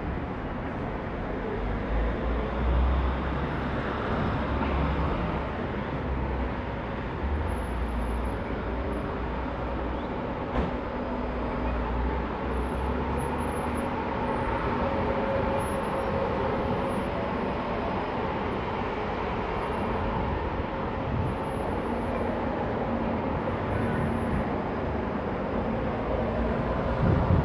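Outdoor street ambience: steady traffic noise, with a low rumble through roughly the first half.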